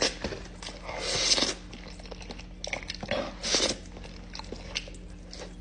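Close-miked mukbang eating: chewing with small wet clicks, and two louder hissing bursts about a second in and again past three seconds.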